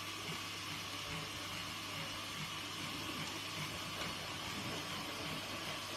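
Steady background hiss with a constant low hum and no distinct sounds standing out.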